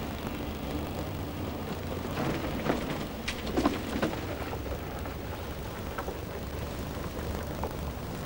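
A car driving along a rough lane: steady low engine and road rumble with tyre noise, and a short cluster of knocks and rattles about three seconds in.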